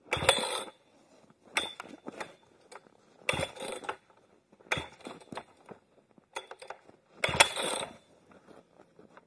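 Husqvarna 3120XP chainsaw's recoil starter being pulled about six times, each pull a short ratcheting whir of the rope and starter, roughly one and a half seconds apart. The engine never catches: the saw won't start.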